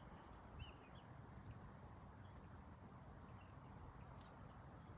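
Faint, steady high-pitched chirring of an insect chorus.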